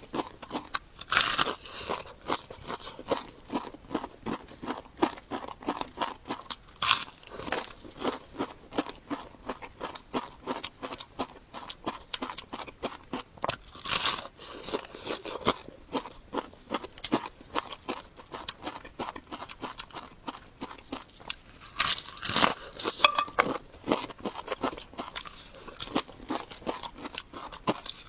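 Crunching and chewing of crispy deep-fried pork caul fat (鸡冠油), as a steady crackle of chewing with a few louder crunching bites standing out.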